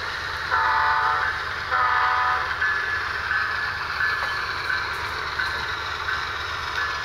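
HO scale model diesel locomotive's horn sounding two blasts about a second apart, over the steady low rumble of its diesel engine sound.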